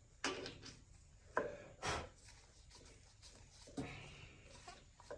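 A few short, sudden handling sounds of hand-tool work: brief scuffs and rubs with one sharp click among them.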